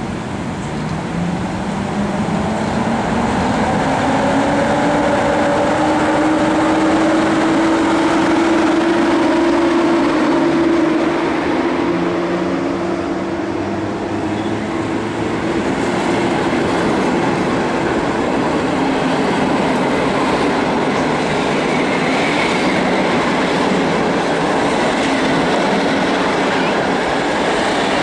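A train moving through the station: a whine rises in pitch over the first several seconds as it gathers speed, then fades into steady rolling rumble with some wheel clatter.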